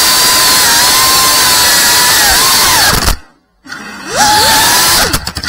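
FPV quadcopter's brushless motors and propellers whining at high throttle, the pitch sliding up and down as the throttle changes. About three seconds in the sound drops almost to silence for half a second as the throttle is chopped. It then comes back with a sharply rising whine and dips again near the end.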